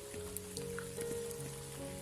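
Soft relaxation music of slow held notes over steady rain, with scattered individual raindrops ticking.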